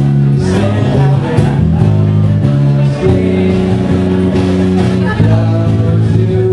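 Live band with electric guitars and bass guitar playing a loud, continuous song, the bass notes shifting every second or so, heard through the room.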